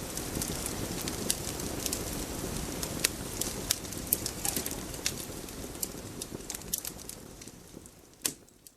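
Steady noisy ambience full of irregular sharp crackles and pops, fading out near the end.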